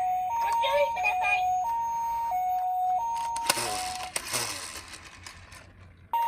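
Toy ambulance's electronic hi-lo siren alternating between two tones, with a tinny recorded voice over it at first. About three and a half seconds in, a sudden burst of noise cuts the siren off and fades away, and the siren starts again abruptly near the end.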